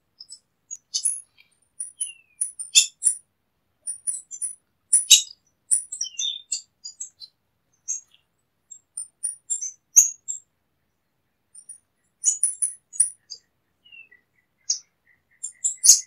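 Beryl-spangled tanager calling: many short, very high, thin chirps and twitters in irregular clusters, with brief pauses between them.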